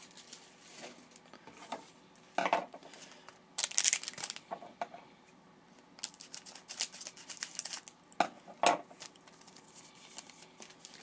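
A 2011-12 Panini Contenders hockey card pack wrapper being opened and cards handled: several short crinkling, tearing bursts, the loudest about four seconds in, with a run of small ticks later on.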